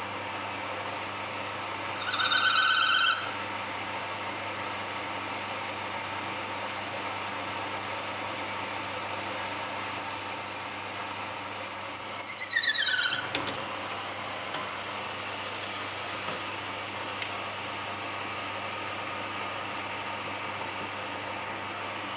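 Workshop lathe running steadily, with a short high squeal about two seconds in. A longer high whine follows, held steady for several seconds, then sliding down in pitch and cutting off suddenly about thirteen seconds in.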